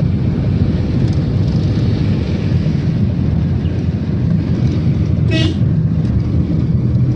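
Vehicle driving along a road: a steady low rumble of engine and road noise throughout, with a short horn toot about five seconds in.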